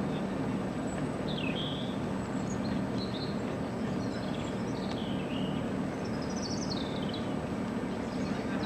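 Steady low outdoor rumble with a few short, high bird chirps over it.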